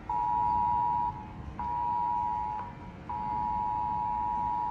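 An electronic beeper sounding a steady mid-pitched alarm tone in long beeps of about a second each, with half-second gaps; the last beep lasts nearly two seconds.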